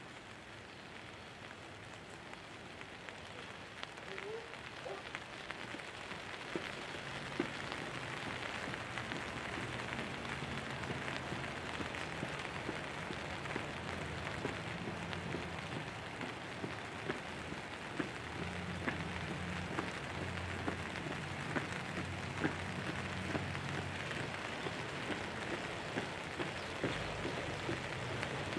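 Light rain pattering on a tent canopy, a steady hiss dotted with scattered drop ticks that grows gradually heavier and louder.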